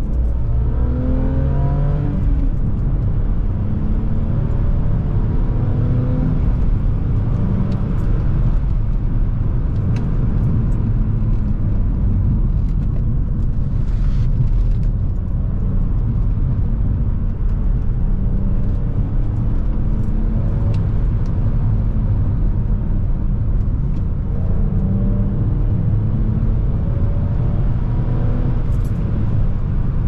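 BMW E46 325Ci's straight-six engine and exhaust heard from inside the cabin while driving. It rises in pitch several times as the car accelerates, over a steady road rumble. The exhaust headers are freshly welded and no longer leaking.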